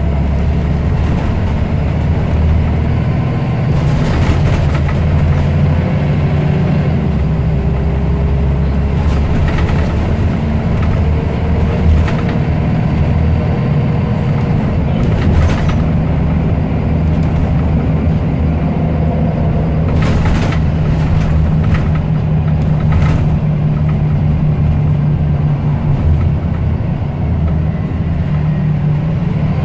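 Scania L94UB bus running on the road, heard from on board: a steady low engine hum whose pitch rises and falls slowly as it pulls away and changes speed. Short knocks and rattles come through at irregular intervals.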